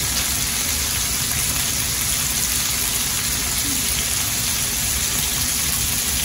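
Scallops frying in butter in a nonstick frying pan, a steady sizzle. The pan is wet with moisture cooking out of the scallops, so they sputter in their own water rather than searing dry.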